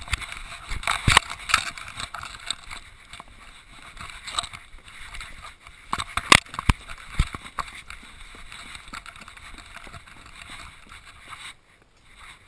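Handling noise from a GoPro camera strapped around an English setter as she moves: a steady rustle of the housing against her fur and harness, with irregular knocks and thumps as it bounces. It drops away suddenly near the end.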